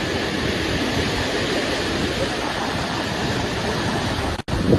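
Steady rush of the flood-swollen Betwa river's water, an even noise that cuts out for an instant near the end.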